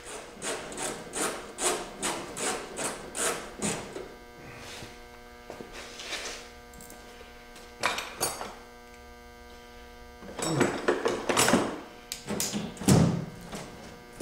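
Steady electrical hum. Over it come a run of quick, evenly spaced taps, about three a second, in the first four seconds, then scattered clunks and knocks, the loudest about a second before the end.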